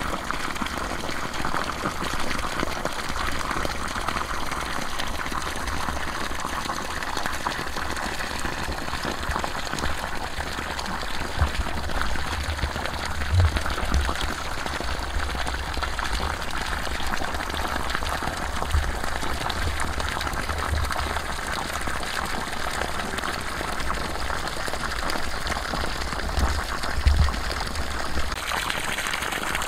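Water gushing steadily from the open end of a PVC pipe fed from a raised drum and splashing onto the ground. A low, uneven rumble runs underneath, with a few louder bumps.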